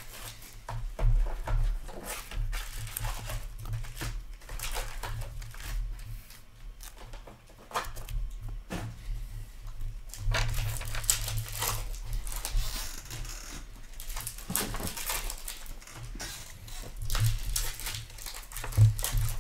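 Hockey trading cards being shuffled, flicked and squared into a stack by hand: quick papery rustles and clicks, with a low hum that comes and goes underneath.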